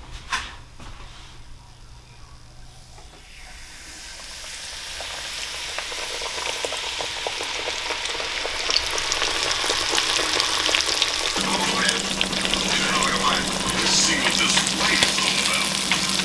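Dredged crappie fillets frying in hot oil in a cast iron skillet: a crackling sizzle that builds over the first several seconds and then runs steady. A low steady hum comes in about two-thirds of the way through.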